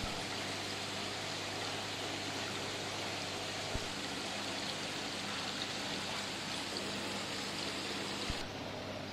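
Aquarium air bubblers and filters running: a steady rush of bubbling water over a low, even hum, with a few faint clicks. The rush turns duller near the end.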